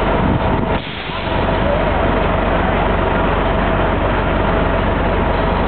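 Loud, steady traffic noise of a busy city street, dipping briefly about a second in.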